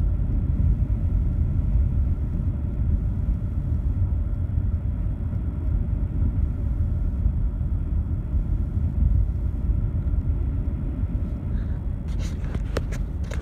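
Steady low rumble of a car driving, road and tyre noise heard from inside the cabin. A few sharp clicks near the end.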